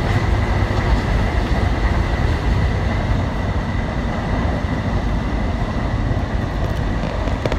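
Amtrak Regional passenger train running along the track, heard from inside its rear car: a steady rumble of wheels on rail with a thin, steady high tone over it.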